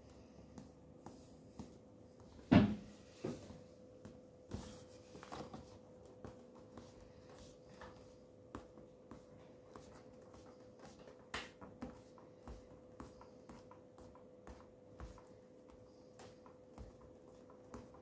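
Scattered light taps and knocks of a hand handling a desktop LCD monitor, one sharper knock about two and a half seconds in, over a faint steady hum.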